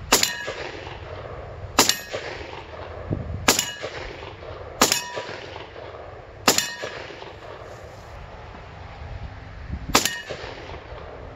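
Benelli M4 12-gauge semi-automatic shotgun fired six times, about one shot every one and a half seconds and then a last one after a longer pause. Each shot is followed by a short metallic ring from the shot striking a steel target.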